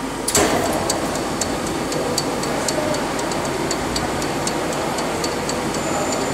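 Conventional metal lathe starting up: a clunk as the spindle engages about a third of a second in, then the four-jaw chuck spinning with the machine running and a sharp tick two or three times a second. Near the end a steady high whine joins in.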